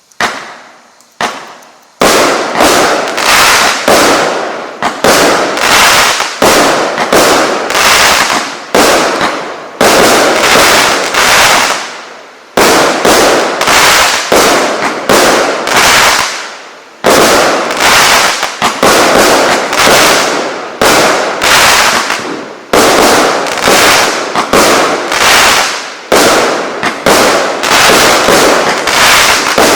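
A 0.8-inch-calibre firework battery (cake) firing: two single bangs in the first second and a half, then from about two seconds a rapid string of shots and bursts, several a second, each cluster fading before the next.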